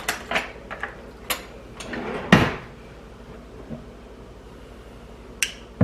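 Kitchen drawer opened and a spoon taken from it: a run of short clicks and rattles, then the drawer pushed shut with a knock about two and a half seconds in. One more sharp click comes near the end.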